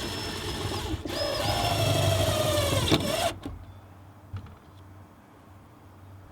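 Power drill running in two bursts, about one second and then about two seconds, with a high whine; the pitch sags a little late in the second run, as under load from a screw or a bit. A few faint clicks follow.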